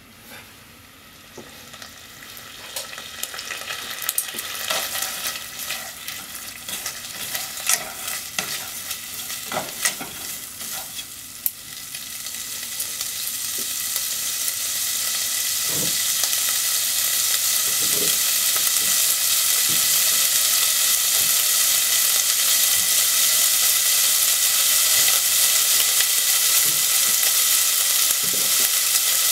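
Sliced pork frying in a nonstick pot, the sizzle growing steadily louder as the pot heats. Short clicks and scrapes of the meat being stirred come over the first dozen seconds.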